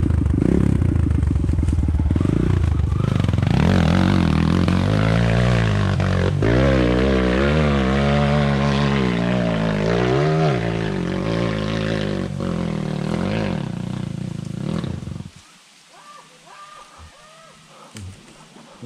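Dirt bike engine revving hard, its pitch rising and falling over and over as the throttle is worked. About fifteen seconds in the engine stops suddenly and the sound falls away.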